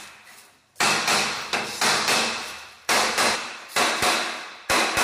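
Hammer blows, about one a second, each ringing out and echoing through a large hall.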